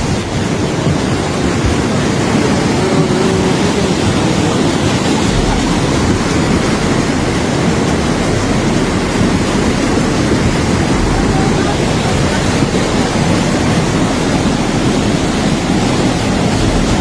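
Floodwater rushing in a swollen stream, a loud, unbroken roar of water.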